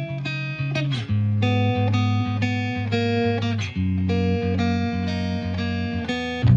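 Background music: plucked guitar melody over a bass line.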